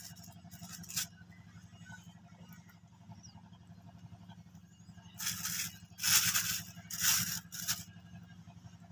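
Clear plastic bag crinkling and rustling as fish are handled in it, in several loud bursts near the end, with a shorter burst about a second in. A steady low hum runs underneath.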